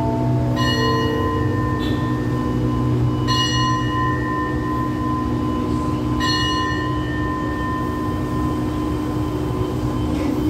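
A bell struck three times, a few seconds apart, each strike ringing on with several clear overtones. The last notes of a falling electronic chime end about a second in, and a steady low engine hum runs underneath.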